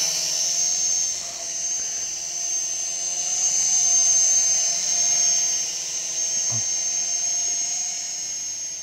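DWI X35 toy quadcopter in flight: the high-pitched whine of its motors and propellers, wavering slightly in pitch as it manoeuvres. It is loudest as it passes close about four seconds in and grows fainter near the end as it flies off.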